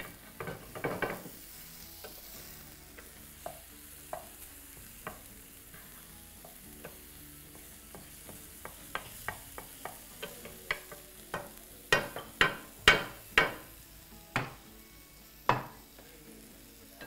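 A spatula scraping and tapping in a frying pan as pieces of chicken are turned, over a faint sizzle of frying. The strokes come thicker in the second half, with several louder knocks against the pan.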